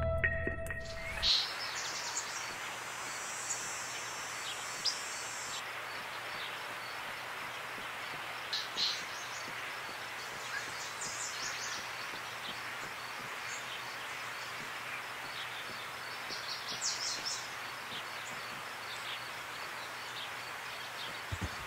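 Outdoor park ambience: a steady, even hiss with short high bird chirps scattered through it, several in quick little clusters. Music dies away in the first second.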